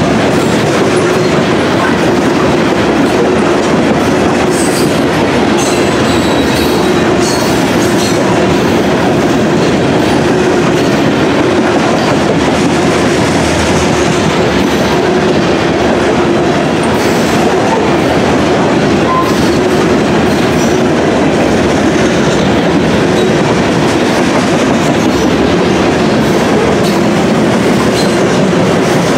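Covered hopper cars of a freight train rolling past close by, their steel wheels running steadily on the rails.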